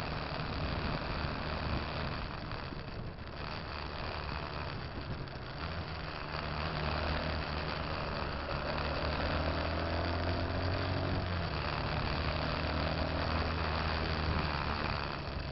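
Road traffic from a moving vehicle: a steady engine running under wind and road noise. Partway through, a heavier engine grows louder with shifting pitch as a large coach runs close alongside.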